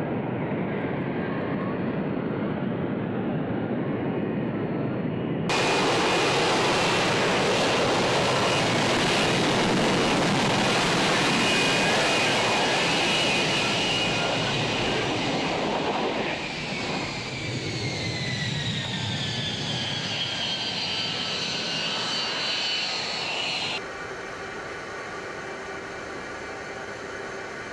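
F-35B Lightning II's F135 jet engine and lift fan in a vertical-landing hover: a loud, steady jet roar with a high whine, louder and fuller after a cut about five seconds in. Past the middle the whine falls in pitch as the engine winds down, and near the end it gives way to a quieter steady hum.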